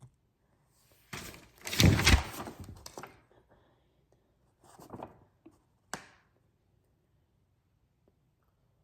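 Clothing rack parts being handled, knocking and clattering: a long burst of clatter about a second in, a shorter one around five seconds, then a single sharp knock.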